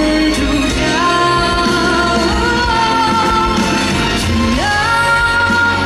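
A woman singing a slow ballad live into a handheld microphone over backing music, the vocal uncorrected by pitch processing. She holds long notes, and about four and a half seconds in her voice leaps up to a high note held to the end.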